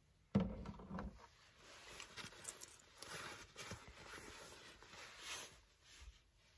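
Faint handling noises: a soft knock about half a second in, then fabric rustling and light scraping as a person moves about in a padded jacket among bedding.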